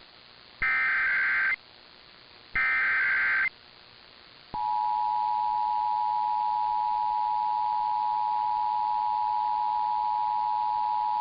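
Emergency Alert System SAME header: the last two of its three digital data bursts, each about a second long with a second's gap between them. About a second after the last burst, the steady two-tone EAS attention signal starts and holds, marking the start of an alert, here a required monthly test.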